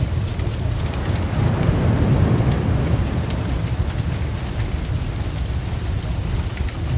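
Open fire burning: a steady rushing roar of flames with scattered sharp crackles and pops, swelling briefly about two seconds in.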